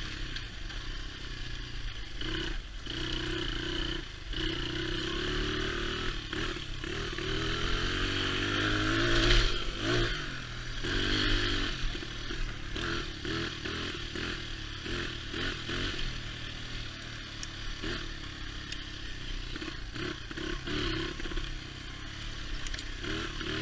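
2002 Honda XR80R dirt bike's 80cc four-stroke single-cylinder engine revving up and down while being ridden, loudest about nine to ten seconds in. Knocks and rattles run through it as the bike goes over rough ground.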